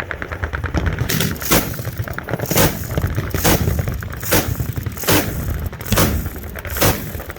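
Gunfire from many guns on a machine-gun firing line: a quick burst of rapid shots in the first second, then loud single reports about once a second over a continuous low din of other fire.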